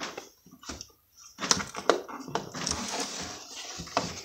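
Cardboard-and-plastic toy packaging being handled: scattered clicks, then a longer rustle from about a second and a half in.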